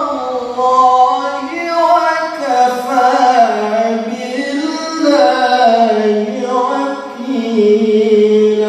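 A male qari reciting the Qur'an in Arabic in melodic tilawah style into a microphone, one voice holding long ornamented notes that rise and fall.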